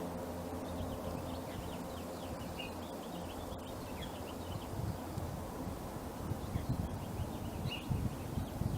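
A low droning hum made of several steady tones, fading out about three seconds in, with birds chirping over it. Irregular low rumbles follow in the second half.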